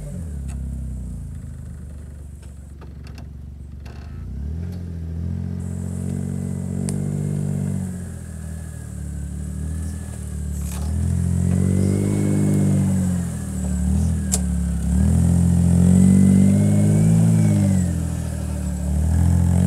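Petrol John Deere Gator utility vehicle driving over rough ground, its engine running steadily at first, then revving up and easing off several times, louder in the second half. A thin whine rises and falls with the engine.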